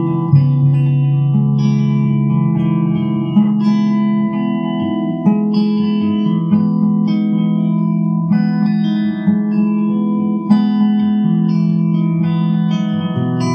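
Electric guitar: chords strummed about once a second and left to ring.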